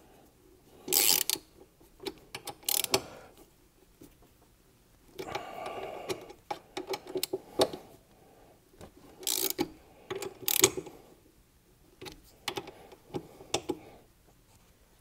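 Hand ratchet wrench clicking in several short bursts as it tightens the M8 bolts that clamp the exhaust hanger bracket, a little at a time.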